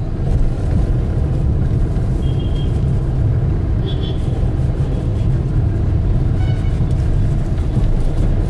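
Steady low rumble of road traffic, with a few brief high-pitched tones a couple of seconds apart.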